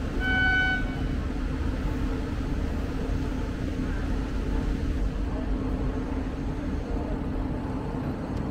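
Indian Railways train's horn sounding once for about a second, then the steady low rumble and constant hum of the train approaching the station.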